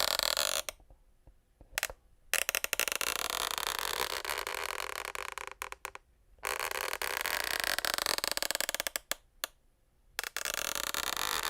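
Parquet floorboards creaking: a series of long drawn-out creaks, each one to four seconds long and made of rapid fine ticking, with short pauses between them and a few short clicks.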